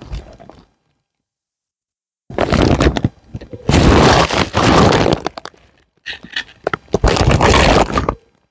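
Toy packaging being handled and opened close up, in three noisy spells of one to two seconds each with short pauses between.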